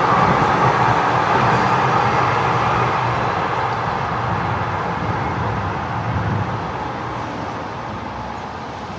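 Street traffic, with a vehicle passing loudly at first and then fading away steadily over several seconds.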